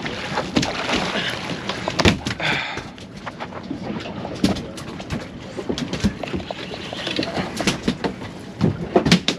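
Rod and fishing reel being worked against a hooked fish: irregular clicks and knocks, with a brief hiss about two to three seconds in.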